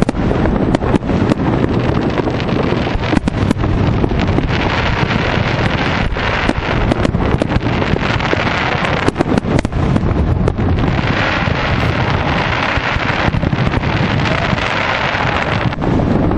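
Fireworks going off: many sharp bangs at irregular intervals over heavy wind noise on the microphone.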